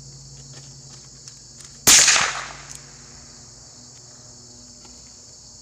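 A single rifle shot about two seconds in, with a short echo trailing off after it, over the steady high chirring of crickets.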